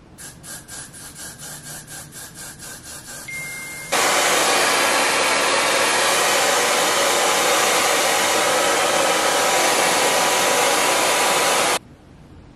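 A quick run of short hisses from a Got2b aerosol hair-spray can, about three a second. Then a hair dryer switches on about four seconds in and runs steadily, loud and even, before cutting off suddenly near the end.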